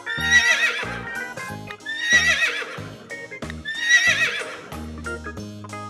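Horse whinnying three times, about two seconds apart, each a wavering high call lasting about a second, over background music.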